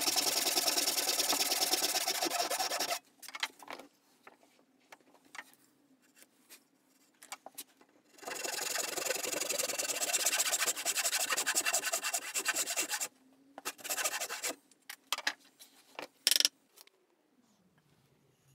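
Hand sawing wood with a restored Sandvik tenon saw: quick, even back-and-forth strokes in two bouts, one of about three seconds at the start and one of about five seconds in the middle. Between and after the bouts come scattered small knocks and clicks.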